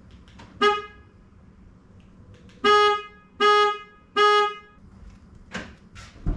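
A Ford Bronco's horn gives one short chirp, then three short honks about three-quarters of a second apart, as the tail lights flash. A couple of sharp knocks follow near the end.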